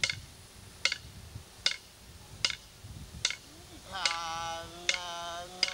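Tiwi Kulama song: sharp percussive beats keep an even time, about one every 0.8 seconds, and about two-thirds of the way through a man's voice comes in singing long held notes.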